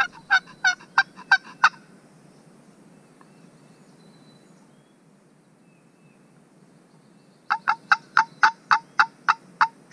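Turkey yelping on a hunter's turkey call, sent out to draw in a gobbler: two runs of evenly spaced yelps, about three a second, each note breaking from high to low. About seven yelps come at the start, then a pause, then about nine more near the end.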